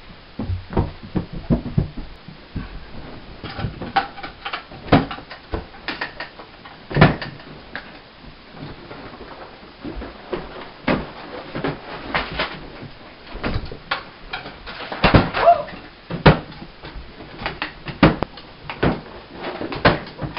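Irregular knocks, bumps and clatter of people rummaging around a room, pulling at wooden dresser drawers and handling clothes, with no steady sound between the hits.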